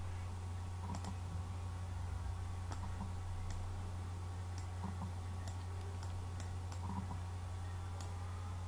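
Computer mouse clicking about ten times at irregular intervals over a steady low electrical hum.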